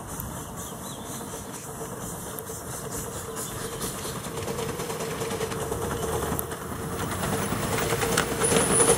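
Miniature steam locomotive hauling a passenger train, its steam hissing and running sound growing steadily louder as it approaches.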